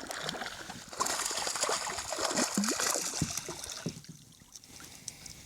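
Water splashing and trickling, loudest from about one to four seconds in, as a hooked speckled trout thrashes at the surface beside a kayak.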